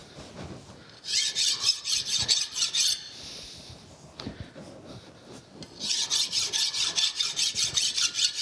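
A hand file rasping across a metal shaft in quick short strokes, in two bouts: one about a second in, and a longer one starting about six seconds in. The strokes are knocking down raised dings and set-screw burrs so that nothing stands above the shaft's diameter.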